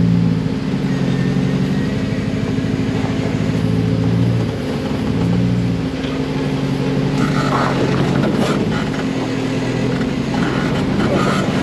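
Off-road buggy engine running at low, fairly steady revs, its pitch dipping and rising a little a few times, while the vehicle creeps down a steep gravel track. In the second half, scattered knocks and rattles come through over the engine.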